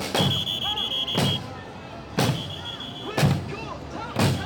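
A big drum struck hard about once a second, each beat a deep boom. A shrill steady tone sounds in stretches between the beats.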